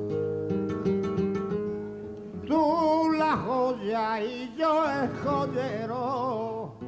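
Flamenco guitar playing alone at first. A male flamenco singer then comes in about a third of the way through with a long, wavering, ornamented sung line over the guitar.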